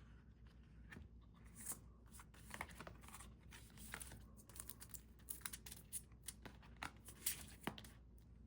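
Faint crinkling and light taps of paper and plastic album inclusions being handled and put away, many short irregular sounds, the loudest a little after seven seconds in.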